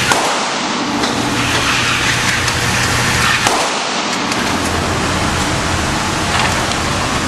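A few sharp gunshot cracks from other shooters at a shooting range, spaced a few seconds apart, over a steady hiss of background noise.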